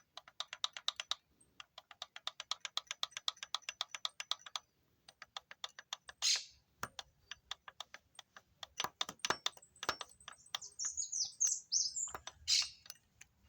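Kawasaki GPX 600 clutch basket rattling at idle, a fast metallic ticking of about ten clicks a second that stops and starts: the sign of its rubber dampers having broken apart. A few short, high, falling squeaks come near the end.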